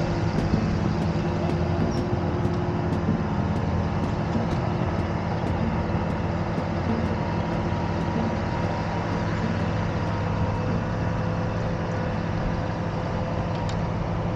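An engine idling steadily: a low, even drone that does not change.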